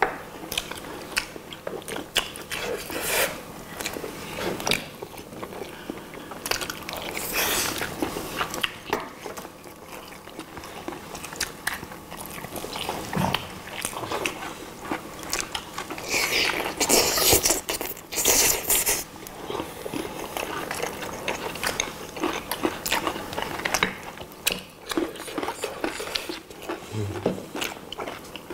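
People biting into and chewing glazed roast chicken legs, with many short mouth clicks and smacks. There are louder, noisier spells about 8 seconds in and again from about 16 to 19 seconds in.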